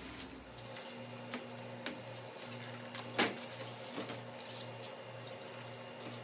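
Euhomy under-counter ice maker running just after being switched on: a steady low hum with a deep tone pulsing about twice a second, and a few light clicks and taps, the loudest about three seconds in.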